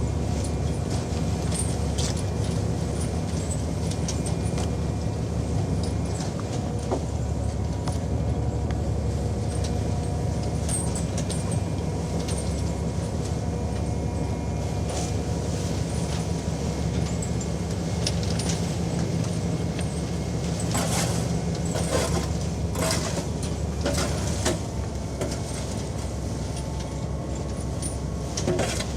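A fishing boat's engine drones low and steady, with a few fixed hum tones. Scattered knocks and clatters from work on deck run over it, with a run of louder clattering strikes about three quarters of the way through and again at the very end.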